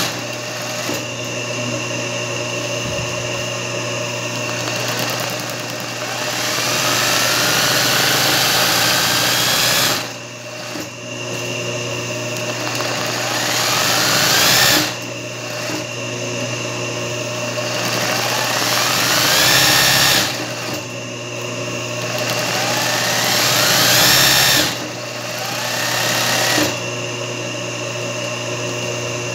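Singer 20U industrial zigzag sewing machine stitching free-motion embroidery. Its motor whine rises in pitch as it speeds up, then drops off sharply, about five times, with the needle running throughout.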